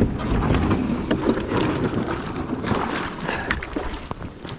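Canoe being pushed off into the river: water splashing against the hull, with a few sharp knocks along the way.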